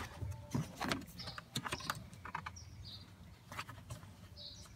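Plastic trim panel under the hood of a Tesla Model S being peeled up and handled: a string of light, irregular plastic clicks and rubs.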